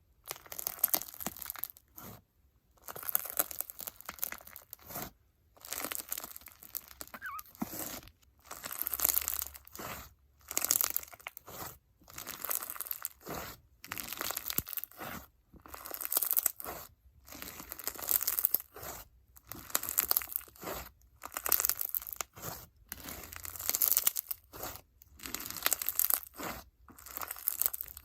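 Hands squeezing and pressing an icy-jelly crunch slime packed with foam beads and bingsu beads, crackling and popping in repeated squishes, roughly one every second or so.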